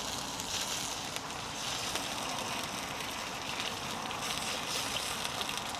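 Ketchup and chili sauce sizzling in a hot pan: a steady hiss with faint crackles.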